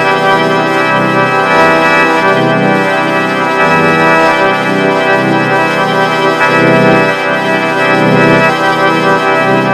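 Vocoder holding a G major chord: a dense, steady, organ-like electronic chord, with its low end pulsing.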